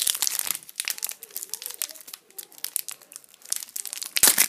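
Foil Pokémon booster-pack wrapper crinkling and crackling in the hands as it is worked at to tear it open, with a louder crackle about four seconds in.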